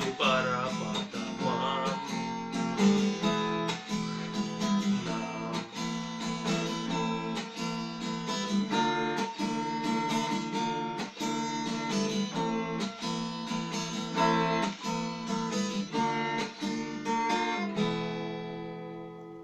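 Acoustic guitar strummed in a steady rhythm, ending about three seconds before the end on a last chord that rings out and fades.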